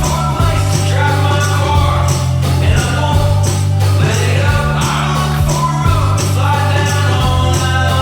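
Background music: a rock-style song with singing and a steady beat.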